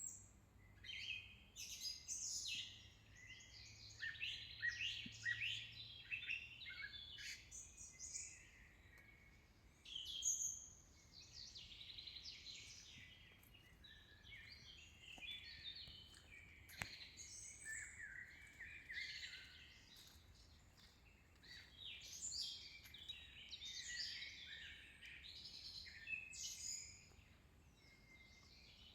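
Several birds singing at once, a dense chorus of chirps and trills that rises and falls without a break.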